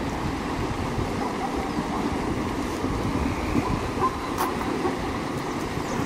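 A herd of zebras and wildebeest splashing through a fast river: a steady rumble of churning water and many hooves, with a few faint short ticks about two-thirds of the way through.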